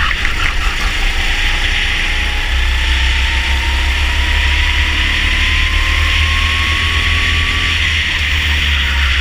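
Rental go-kart's engine pulling hard as the kart accelerates along a straight, its note rising slowly and steadily, then easing off near the end. Wind rumbles on the onboard camera's microphone throughout.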